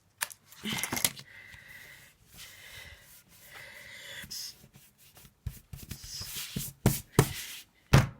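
Card and paper being worked by hand at a craft table: two long, steady scraping strokes, then a string of sharp taps and knocks, the loudest near the end.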